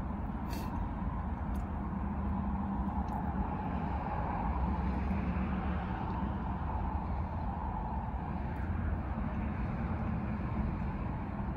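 Steady low vehicle rumble heard inside a car cabin, with a few faint clicks in the first few seconds.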